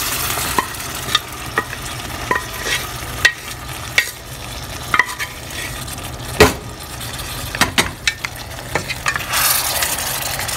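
Cooked mutton pieces sizzling in hot oil in a stainless steel pot, stirred with a wooden spatula that clicks and knocks against the pot. One sharper knock comes a little past halfway.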